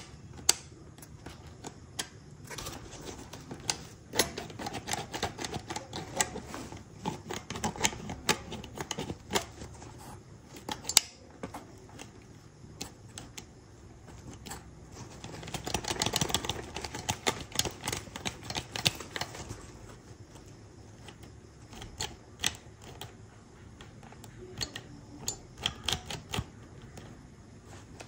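Backpack being handled: irregular sharp clicks and knocks from its fittings, with a denser stretch of rustling and clicking about halfway through.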